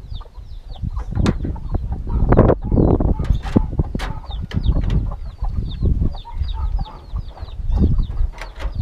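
Chickens clucking and peeping, the short high peeps coming several times a second over a steady low rumble. Repeated knocks and clatter come from hands working at the wooden rabbit pens.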